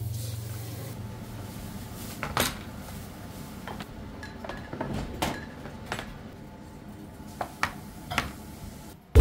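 Scattered light clinks and knocks of dishes, bowls and cutlery being handled and set down, about eight separate clinks over several seconds.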